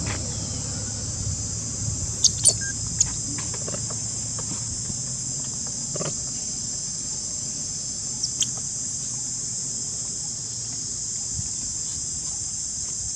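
Steady high-pitched drone of insects, with a few short sharp high sounds about two seconds in and again near eight seconds.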